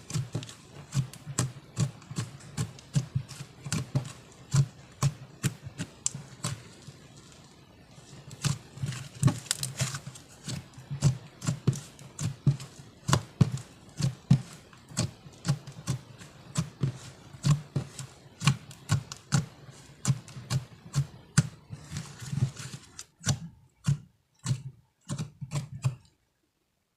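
Slime being squished and kneaded by hand, a run of wet clicks and pops, about two or three a second; it stops about a second before the end.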